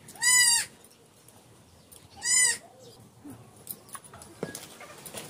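A goat bleating twice, each call about half a second long and rising then falling in pitch, about two seconds apart.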